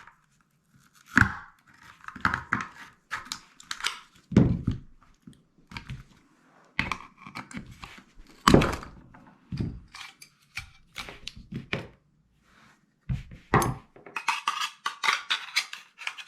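Hollow plastic power bank case being pried apart and handled: irregular clicks, knocks and scraping of hard plastic parts, with heavier knocks about four and eight seconds in and a quick run of clicking and scraping near the end.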